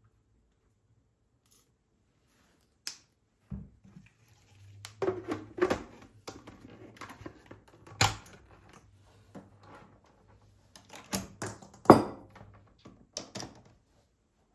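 Irregular clicks, taps and knocks of small items being handled and set down, the loudest knocks about 8 and 12 seconds in, over a faint low hum.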